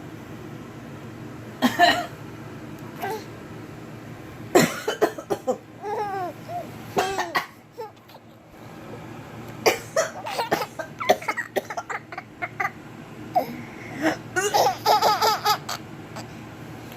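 Someone coughing several times, each cough set off by a baby's laughter and babbling.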